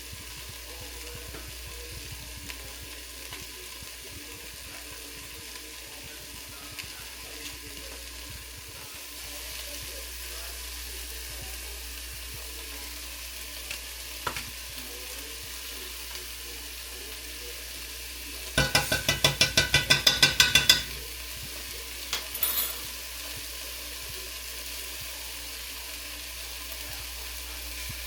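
Food frying and sizzling in a pot, with light stirring clicks. About two-thirds of the way through, a loud run of about a dozen quick knocks, roughly six a second, lasts a couple of seconds, followed shortly by a few smaller clicks.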